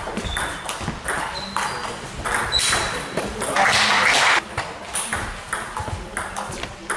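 Table tennis rally: the ball clicking off bats and table in quick succession. A short burst of spectator applause lasts about a second midway, and the clicking of the next rally starts again near the end.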